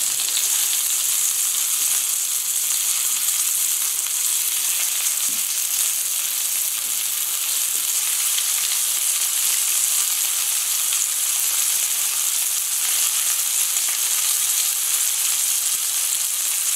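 Cod fillet frying in oil and butter in a pan: a steady sizzle.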